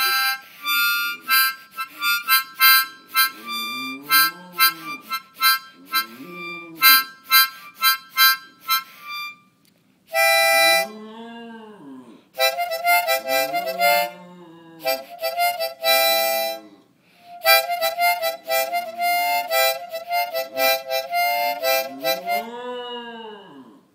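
A harmonica played in runs of quick notes with short pauses, and a small dog howling along to it in several low, drawn-out calls that rise and then fall in pitch, a moo-like sound.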